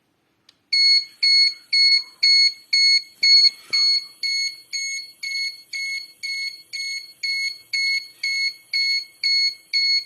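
Student-built fire alarm's buzzer beeping, a steady run of short high-pitched beeps at about two a second, starting just under a second in and stopping at the very end.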